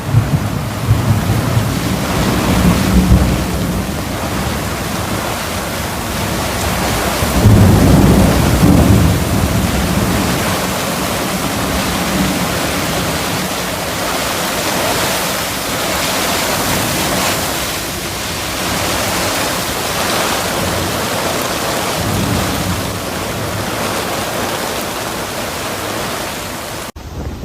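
Hurricane storm sound: heavy rain with a steady rushing hiss, and low rumbling surges near the start and about eight seconds in.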